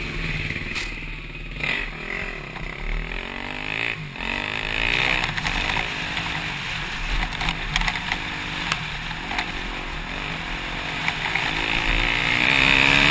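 Dirt bike engine heard from the rider's helmet camera, revving up and down as the bike accelerates along a dirt trail, with scattered clatter and knocks from the bike over rough ground. The engine gets louder near the end.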